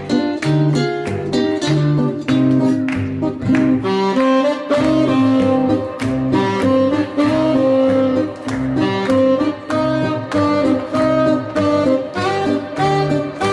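Background music: a sustained melody line over a steady bass.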